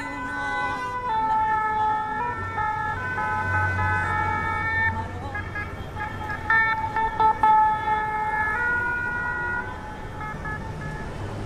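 A melody of long held notes that step up and down in pitch, with a few sharp clicks a little past the middle.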